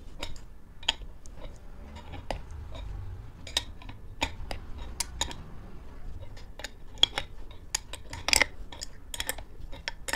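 Adjustable wrench clinking on the nut of a bearing puller as it is turned in short strokes and repositioned, with irregular metal clicks several times a second and the loudest clinks about seven and eight seconds in. The puller is slowly drawing the old inner bushing out of a scooter CVT variator.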